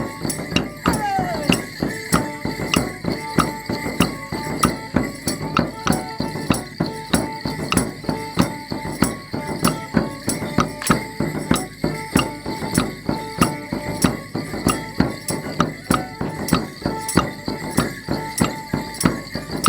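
Folk band playing a Border Morris dance tune, with sharp knocks landing on the beat about twice a second from the dance.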